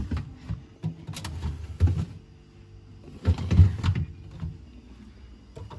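Fridge compartments being opened and shut: plastic sliding and several knocks, the loudest cluster about three and a half seconds in.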